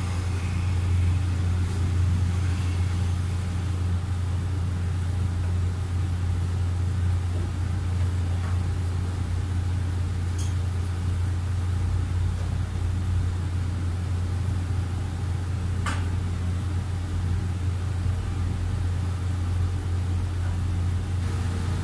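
A steady low mechanical hum, like a motor running, with two or three faint clicks around the middle.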